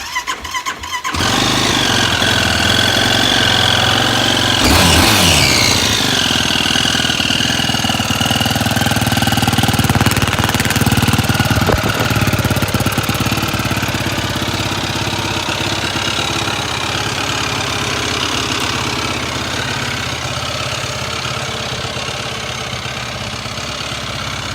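Yamaha YFZ450R ATV's single-cylinder four-stroke engine cranking and catching about a second in, then idling steadily, with a brief rise in revs about five seconds in that falls back. The owner hears a weird noise in it.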